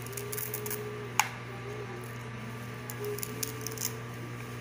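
Light rustling and handling noise from a mouse cable and its tie being unwound by hand, with one sharp click about a second in.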